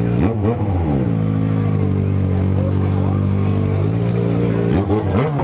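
Yamaha XJ6N's 600 cc inline-four engine through a Power GP2 4x1 full aftermarket exhaust: a throttle blip falling away about half a second in, steady running at constant revs, then another rev rising and falling near the end.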